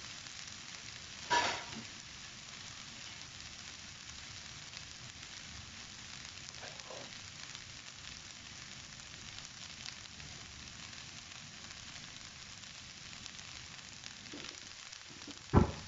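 Noodle and vegetable filling sizzling steadily in a non-stick wok over a gas flame. A sharp knock comes about a second and a half in, a fainter one midway, and the loudest just before the end.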